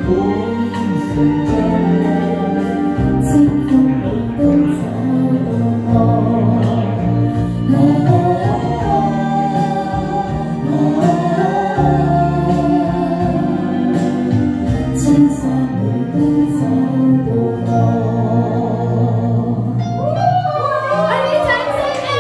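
A woman singing a song into a handheld microphone over backing music.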